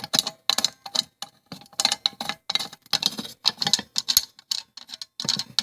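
Irregular clicking and light clatter of small hard objects being handled, about three or four sharp clicks a second.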